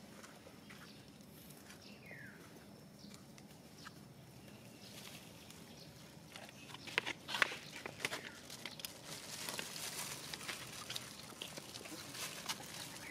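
Long-tailed macaques moving about on bare ground: scattered short scuffs and clicks, loudest a little past the middle, with a short falling squeak about two seconds in.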